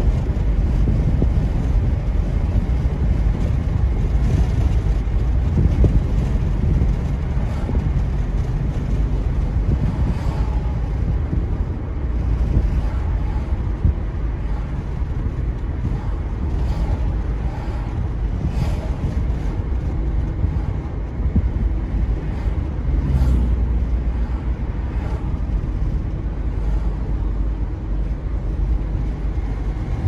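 Car driving: a steady low rumble of tyres on the road and the engine, with some wind noise on the microphone.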